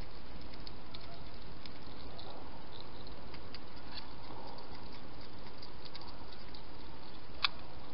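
Wild hedgehog feeding: a run of small, faint clicks of its eating over a steady hiss, with one sharper click near the end.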